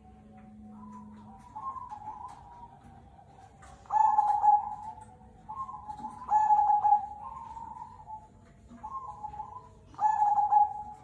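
Zebra doves (perkutut) cooing in repeated rolling phrases. Louder phrases come about four, six and ten seconds in, with softer coos at slightly different pitches overlapping between them, as if more than one bird is calling.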